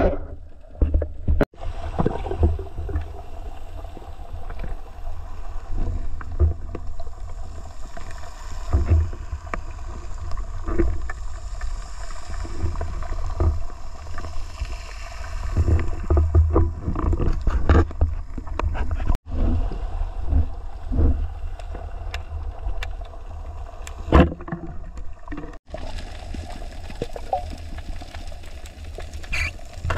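Underwater sound picked up by a camera in a waterproof housing during a night dive: a muffled low rumble with irregular knocks and thuds. Three brief dropouts occur where the clips are cut.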